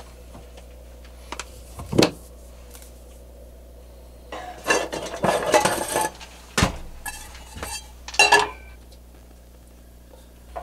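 Kitchen clatter at a camper's gas stove: sharp knocks of cabinet doors and cookware, with a small saucepan and dishes rattling and clinking, the longest rattle lasting about a second and a half midway.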